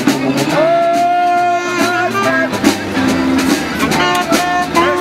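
A street band playing a lively, upbeat tune. A melody instrument holds one long note about half a second in, then moves on in shorter notes over a steady rhythmic accompaniment.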